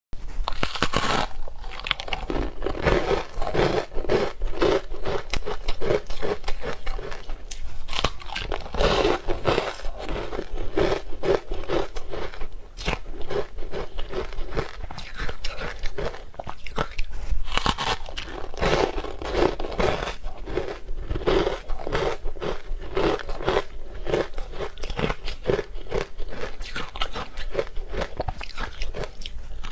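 Green-coloured frozen ice blocks being bitten and chewed: a continuous run of crisp, brittle crunches.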